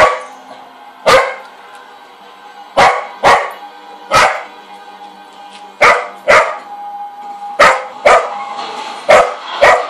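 Cocker spaniel barking in about ten short, sharp barks, several coming in quick pairs, over quiet background music.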